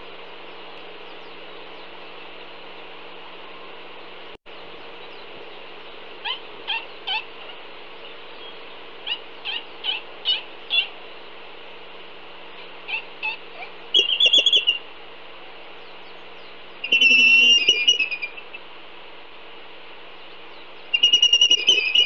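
Laysan albatrosses calling at the nest: a run of short squeaky calls, then three louder, rapidly pulsing squealing calls about 14, 17 and 21 seconds in, over a steady background hiss.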